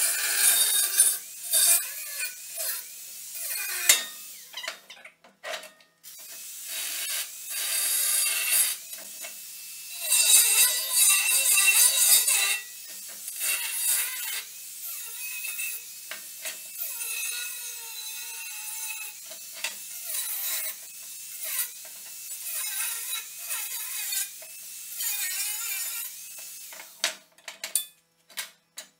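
Angle grinder with a cut-off disc cutting through steel section in a series of bursts with short pauses, the disc's whine bending in pitch as it bites into the metal. A few sharp knocks near the end as the cut piece is handled.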